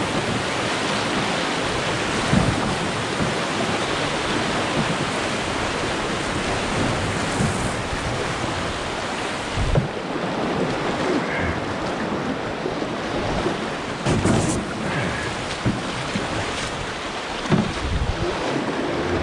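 Rushing whitewater of a brook's class II rapids churning around an open canoe, a steady loud roar of water, with a few dull thumps spread through it.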